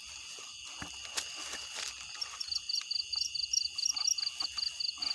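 Night chorus of frogs and insects: a steady high insect trill throughout, joined about halfway in by a rapid run of short, high calls, several a second. A few faint clicks are heard along with it.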